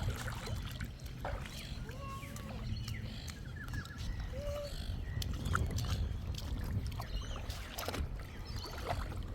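Lakeside water ambience: a steady low rumble of wind on the microphone, with light water splashing and scattered small clicks, and a few faint short calls in the distance.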